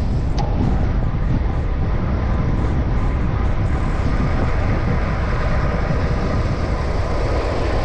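Wind buffeting the microphone of a handlebar-mounted camera on a road bike riding at speed: a steady, loud rushing rumble. There is one brief click about half a second in.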